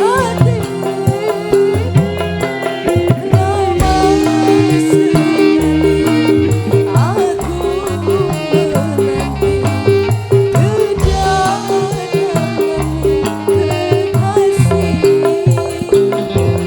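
A live dangdut band playing an instrumental passage through a PA sound system: hand drums and a bass line under a held note and a melody.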